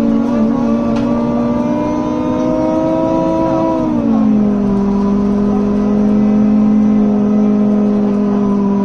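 Loud humming drone of a 2019 BMC Procity bus's engaged cooling fans over its Cummins ISB6.7 diesel, heard from inside the bus while it drives. The pitch creeps up, falls about four seconds in, then holds steady.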